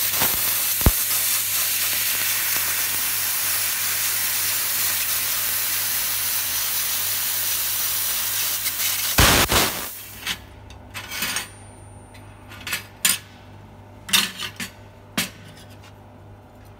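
1500 W handheld laser cutting 2 mm stainless steel sheet: a steady loud hiss of the cut, which stops about nine seconds in with a knock. A handful of metal clinks follow as the cut stainless pieces are handled, over a low steady hum.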